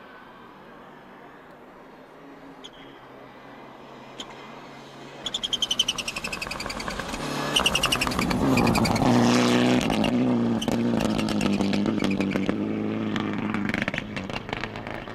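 Mitsubishi Lancer Evolution rally car with its turbocharged four-cylinder engine, faint at first, then revving hard with a rapid crackle as it comes close. It is loudest about halfway through and fades as the car drives away.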